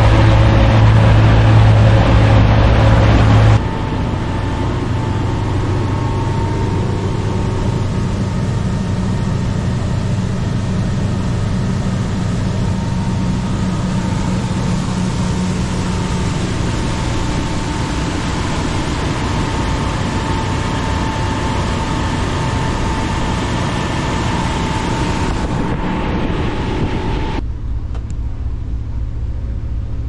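Motorboat engine running steadily underway, a constant hum under a broad rush of noise. The sound changes abruptly twice, about three and a half seconds in and near the end.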